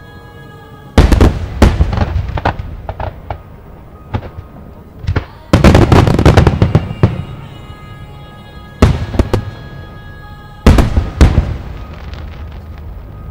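Aerial fireworks bursting in volleys: loud booms followed by crackling. The longest, densest barrage comes midway, with two more short volleys later.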